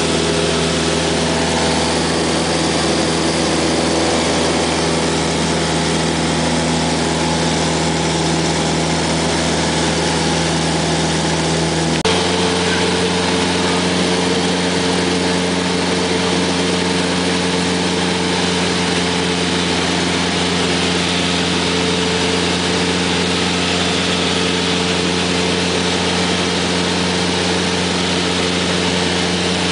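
Cessna 172's piston engine and propeller heard inside the cabin in cruise flight: a loud, steady drone. About twelve seconds in, the pitch of the drone shifts abruptly to a different steady note.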